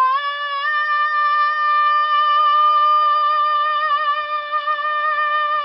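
A teenage boy's voice holding one long, high sung note, sliding up in pitch at the start, then held with a slight waver: a loud vocal (발성) exercise.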